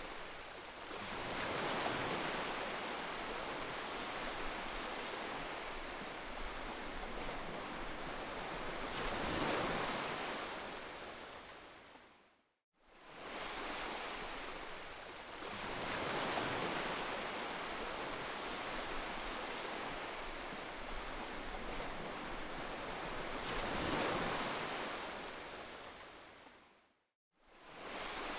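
Heavy rain, a dense steady hiss that swells and eases every few seconds. It fades out to silence about twelve seconds in and again near the end, fading back in each time.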